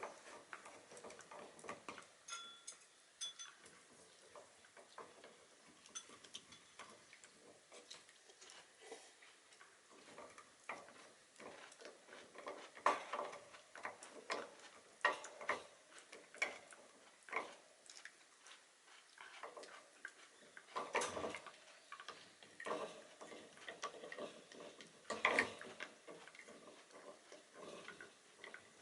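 Shiba Inu gnawing on a hard horse-hoof chew: irregular clicking and scraping of teeth on hoof, with a few louder knocks now and then.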